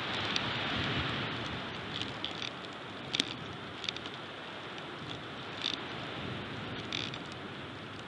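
Strong wind rushing steadily over the nest cam's microphone, with a handful of short clicks and snaps from a bald eagle shifting sticks in its nest, the sharpest about three seconds in.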